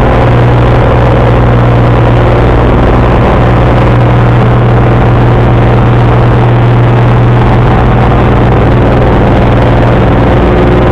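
A Cessna single-engine light airplane's piston engine and propeller running steadily in flight, heard from inside the cabin as a loud, unbroken drone with a strong low hum.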